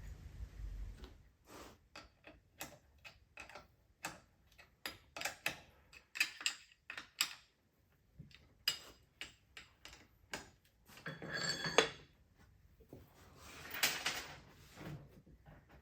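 Metal parts and hand tools clinking and tapping irregularly as an adapter is fitted to a T15 transmission. Two longer scraping stretches come about eleven and fourteen seconds in.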